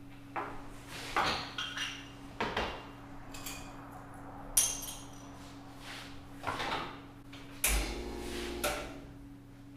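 Clatter of cups, saucers and barista equipment being handled at an espresso station: a string of separate knocks and clinks over a steady low hum, with a brief low rumble about eight seconds in.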